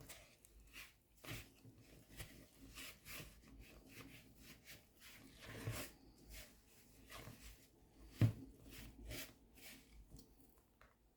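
Hands mixing bread dough in a bowl: irregular soft squelching and slapping noises, the loudest about eight seconds in.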